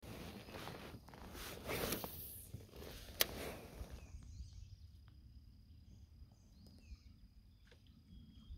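A cast with a spinning rod: the rod swishes and line runs off the reel, with one sharp click about three seconds in. Then it goes near quiet, with faint high chirps and small ticks.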